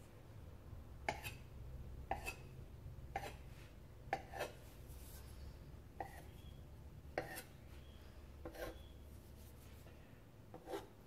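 A large kitchen knife cutting into croissant dough and tapping down on the floured table, about eight short sharp taps roughly a second apart, as a small slit is cut into the base of each dough triangle. A low steady hum runs underneath.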